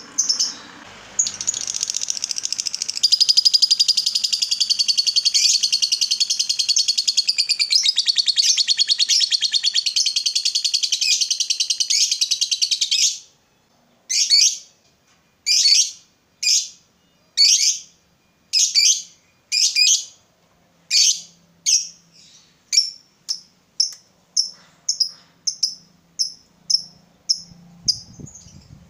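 Lovebird chattering in one long, rapid, unbroken trill of high calls for about twelve seconds, the long 'ngekek' chatter that keepers prize. It stops abruptly, then gives short sharp chirps about a second apart that come quicker and fainter toward the end.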